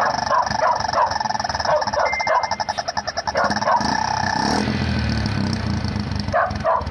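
Engine exhaust fitted with a rubber-and-tape attachment, running for a sound test: a rapid pulsing note that bends up and down in pitch, dropping to a lower, deeper drone about four and a half seconds in, then a few short rising squawks near the end.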